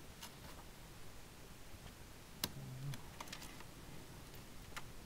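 Faint, scattered small clicks and taps of plastic as a laptop's cooling fan assembly is worked loose and slid out of its bay, with one sharper click about two and a half seconds in.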